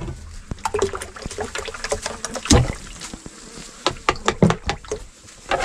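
Cranberries tipped from a glass jar into a pot of water and stirred, with a spoon clinking and scraping against the jar and pot in many short clicks and knocks; the strongest knock comes about two and a half seconds in.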